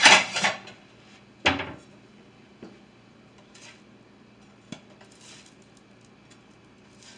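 Spatula and plate clattering against a pan as pancakes are lifted out: a loud clatter at the start, a sharp clank about a second and a half in, then a few faint taps.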